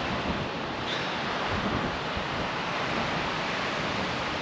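Surf breaking steadily on a sandy beach, a continuous wash of waves, with wind rumbling on the microphone.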